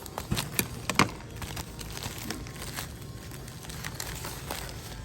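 Plastic packaging crinkling and crackling as it is handled, with a few sharp crackles in the first second or so, then softer rustling.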